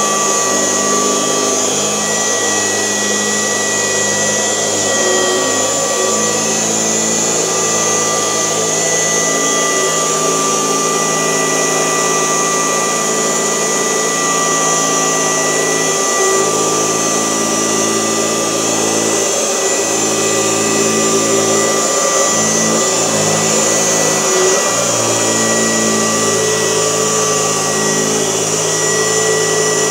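1972 Kirby Classic 1CR vacuum cleaner running in portable mode on a mattress, its motor-driven beater bar agitating the fabric. The motor gives a steady loud hum with two high whine tones; the low part of the hum dips briefly a few times.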